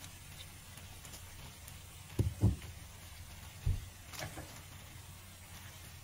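A metal spoon knocking and clicking against a frying pan as penne pasta and fried chicken are stirred: two dull low knocks about two seconds in, another shortly after, then a few light clicks.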